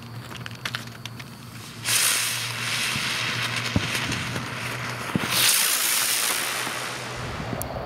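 A Miss Kay's Pyro Turtles spinner firework, a Duck Commander Fireworks ground spinner, lights about two seconds in and hisses loudly as it spins throwing sparks. The hiss swells past the middle as it lifts off and climbs, then fades as it rises away.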